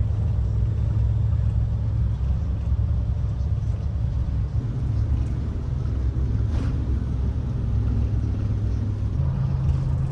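A vehicle engine running steadily at a low, even speed, its note shifting slightly about nine seconds in.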